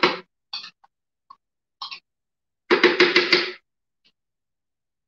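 A spoon knocking and scraping against a plastic blender jar as sour cream is spooned in, with a quick run of six or seven taps about three seconds in.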